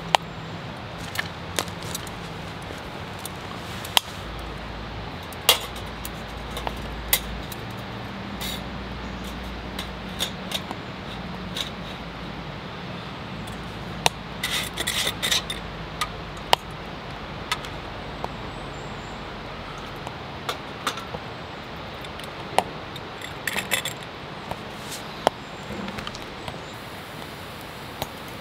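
Twig fire in a Bushbuddy wood-burning stove crackling, with scattered sharp pops and snaps. About halfway through comes a quick run of light metal clinks as the wire pot stand and metal cup are set on the stove.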